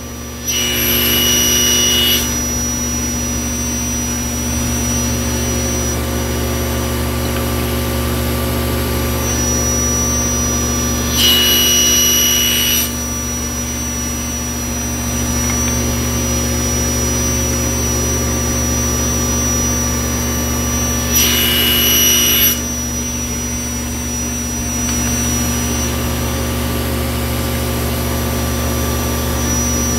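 Table saw running steadily with an 80-tooth Freud LU85 blade, making three crosscuts through a wooden strip to cut segments, about ten seconds apart. Each cut lasts about a second and a half and adds a louder, higher-pitched cutting sound over the steady motor hum.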